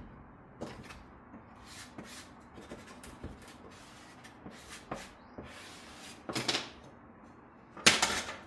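MDF pieces being pressed together in a wooden jig by hand: scattered light clicks and knocks, a brief rub about six and a half seconds in, and a louder knock near the end.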